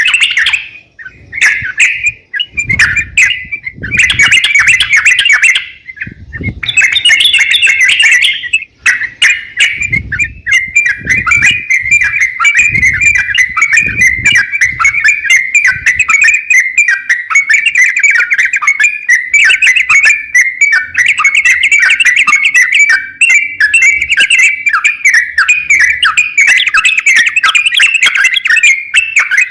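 A crokcokan songbird singing in full voice: fast, chattering phrases pouring out almost without a break, with a few short pauses in the first third. Dull low thuds sound under the song during the first half.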